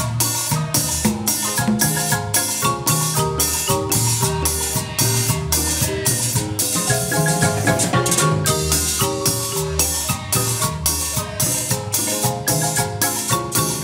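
Guatemalan marimba ensemble playing a cumbia on several wooden marimbas, with drums keeping a steady, even beat.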